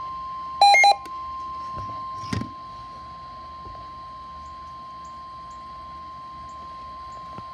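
Emergency alert warning tone: one steady high tone near 1 kHz, the 1050 Hz warning alarm tone that comes before a National Weather Service warning. A brief, loud, buzzy beep cuts in just under a second in, and there is a short knock about two and a half seconds in.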